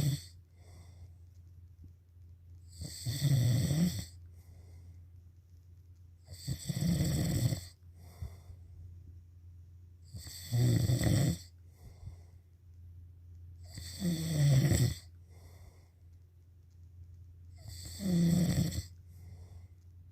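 A person snoring: five snores, one about every three and a half to four seconds, each lasting about a second, with a faint short breath after each.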